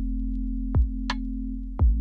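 Background electronic music with a drum-machine beat: deep kick drums about once a second and a sharp higher hit between them, over a held synth bass.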